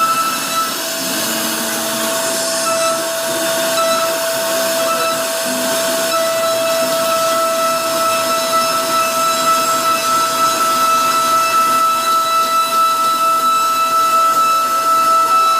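CNC router spindle running with a steady high whine over a rushing noise of the bit cutting wood. The whine's pitch steps up slightly just before the stretch and then holds.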